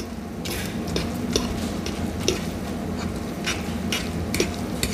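Two metal forks tossing spaghetti in a non-stick frying pan, their tines clicking and scraping irregularly against the pan as the pasta is worked into the egg mixture off the heat.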